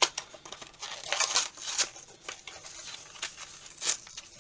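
Collectible figure's packaging box being worked open by hand: irregular scraping, crinkling and small clicks.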